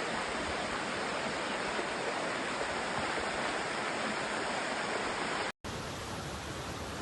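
Steady rushing noise of flowing floodwater. It cuts out for a moment about five and a half seconds in and resumes slightly quieter.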